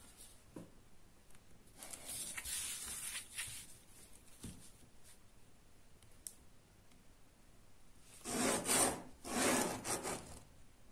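Hands and a plastic ruler rubbing and sliding over a sheet of paper on a table: a soft swish about two seconds in, then two louder swishes near the end.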